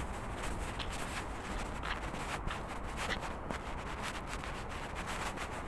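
Footsteps on pavement and the rustle and rubbing of a hand-held phone while walking, irregular scuffs over a low steady rumble.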